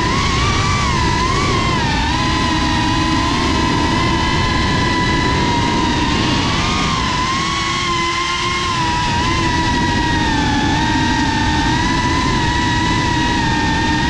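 FPV racing quadcopter's motors and propellers whining, the pitch rising and falling with the throttle and sagging lower around the middle before climbing again, over a steady rushing noise.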